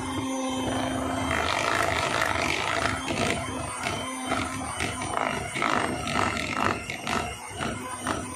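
Electric hand mixer running, its beaters whipping thick chilled cream in a bowl, with a steady motor hum and irregular knocks and scrapes from the beaters against the bowl.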